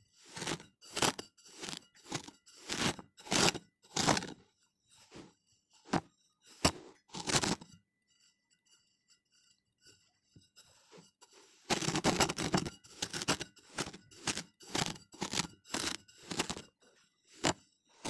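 Kinetic sand crunching as a clear plastic cup is pressed down into it and lifted out, in a run of short crunchy bursts. After a few quieter seconds past the middle comes a denser stretch of continuous crunching.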